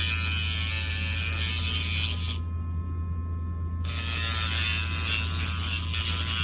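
Casfuy cordless electric dog nail grinder running with a steady whine, its spinning sanding bit grinding a dog's nail in two passes of about two seconds each with a short break between.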